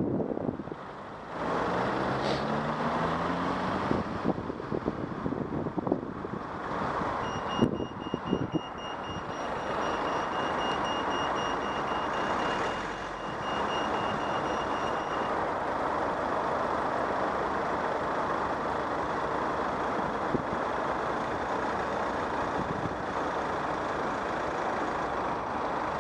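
Pedestrian crossing signal beeping high and steady for about eight seconds, starting about seven seconds in, over a steady hiss of traffic and wind on the microphone. Near the start a vehicle's engine note rises as it pulls away.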